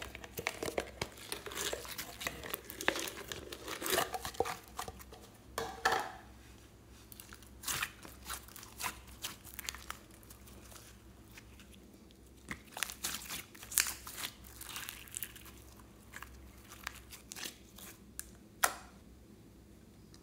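Store-bought green slime being pulled from its plastic tub and squeezed by hand, giving sticky crackling, clicking and popping. The crackles come thick at first and thin out to scattered pops, with one sharp click near the end.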